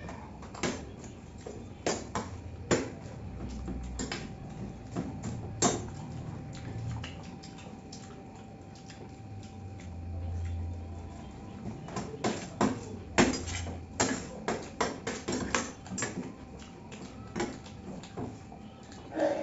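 Metal spoons clinking and scraping against stainless steel plates in irregular clusters of sharp clicks, with eating and chewing in between.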